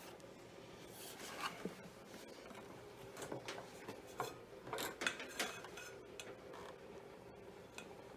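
Faint handling noises of tools and parts: short scrapes, rubs and clicks in two clusters, about a second in and again from about three to five and a half seconds.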